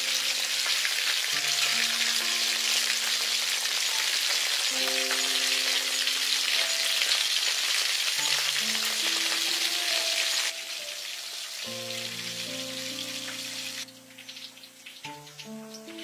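Food frying in hot oil in a pan, a steady sizzle that drops off sharply about ten and a half seconds in, over background music.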